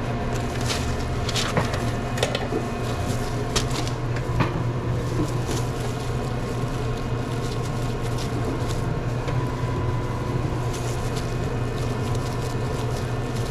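Steady low hum of sandwich-counter kitchen equipment, with a few sharp clicks and knocks from sandwich making in the first few seconds and fainter ones later.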